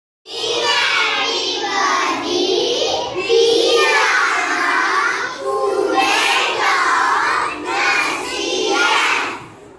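A group of young children reciting a rhyme together in unison, in a sing-song chant, with a brief pause near the end.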